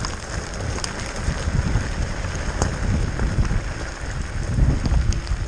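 Wind noise buffeting a helmet camera's microphone on a mountain-bike descent in a rain and hail storm, with rain pattering and a few sharp ticks.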